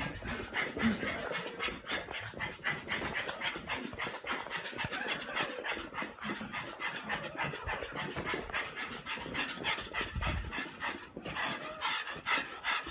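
A pug panting fast and evenly, about five breaths a second, as it plays with a toy. There is a short low thump about ten seconds in.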